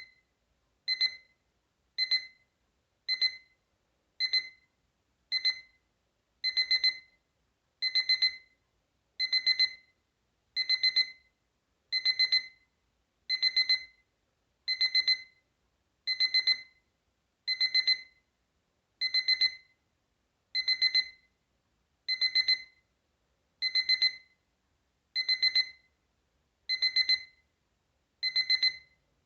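Capello CA-43 alarm clock's alarm beeping with a high-pitched electronic tone. It starts as single beeps about once a second, then from about six seconds in switches to quick clusters of several beeps, repeating roughly every second and a half.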